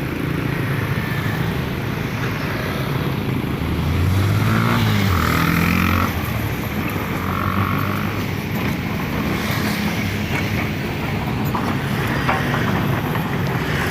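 Excavator's diesel engine running steadily. Its pitch rises and falls once about four to six seconds in as the machine works the soil.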